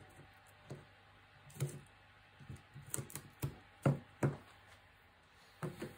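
Double-sided tape and card being handled on a wooden desktop: a string of light knocks and crackles as tape is pulled from its roll and pressed along the edges of a card frame.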